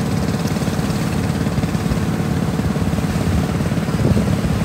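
Small river boat's engine running steadily with a rapid low chugging.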